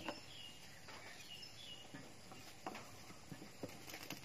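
Sporadic light knocks and clicks, one sharper knock right at the start and a few more near the end, with a few faint high chirps in the first second or so.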